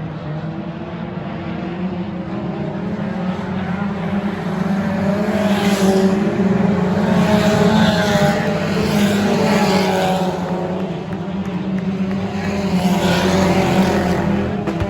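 Dirt-track race cars running laps, a steady engine drone that swells louder twice as the cars come past.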